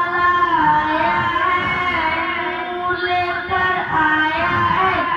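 A boy singing a naat, a devotional Islamic song, into a microphone, holding long, wavering notes.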